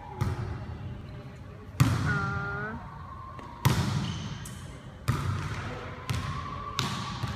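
A volleyball rally: about six sharp slaps of the ball being served, struck and landing on the hard court floor, each one echoing in the big gym hall. A short shout comes about two seconds in.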